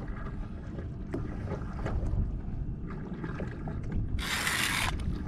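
Steady wind and water noise around a fishing kayak, with a few faint clicks. About four seconds in comes a loud hiss lasting under a second.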